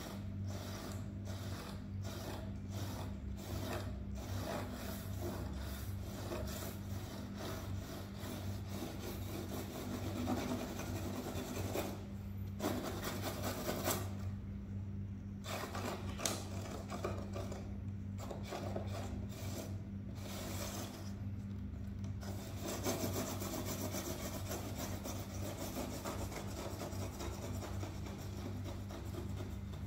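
Fingernails scratching a corrugated cardboard cat scratching board: a dry rasping in quick repeated strokes, about two a second at first, with a few short pauses about halfway through. A steady low hum runs underneath.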